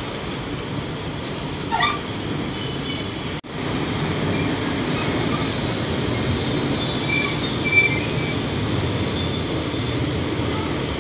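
Steady rumble of busy road and rail traffic, with a faint high squeal that falls slightly in pitch through the middle. A short rising chirp about two seconds in, and a brief dropout in the sound soon after.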